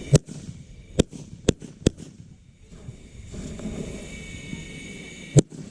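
Consumer fireworks going off: five sharp bangs, four in quick succession in the first two seconds and one more near the end.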